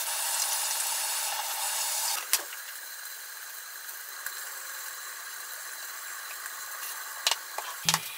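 Chicken pieces frying under the lid of a frying pan: a steady sizzling hiss that drops to a softer level about two seconds in. There are a few light clicks and taps from handling containers near the end, where music begins.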